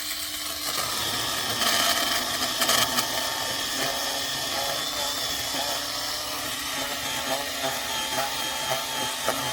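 Ryobi 18V brushless pruning chainsaw running at full speed with a steady whine, its chain cutting through a thick tree root in the soil. The cut is grittiest and loudest between about one and a half and three seconds in.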